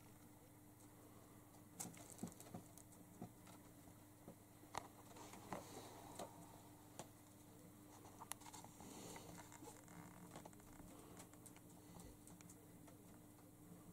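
Faint, scattered light taps and rustles of a cat clambering over shelves stacked with loose papers, over a low steady hum.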